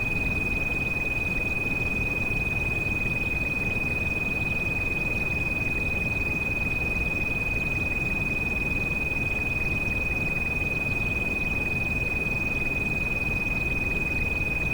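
A steady high-pitched pure tone, a tinnitus-masking treatment frequency, held unchanging over a constant rain sound with a deep rumble.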